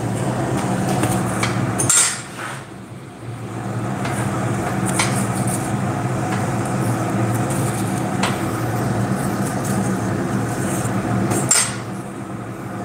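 Coal forge's air blower humming steadily while iron is heated in the fire, with four sharp metallic clinks of tongs and workpiece against the forge, the first and last the loudest.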